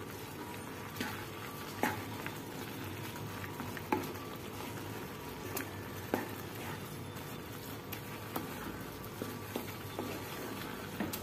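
Wooden spatula stirring a thick mixture of grated carrot, milk and semolina in a metal frying pan, with irregular taps and scrapes of the spatula against the pan over a steady sizzle from the cooking.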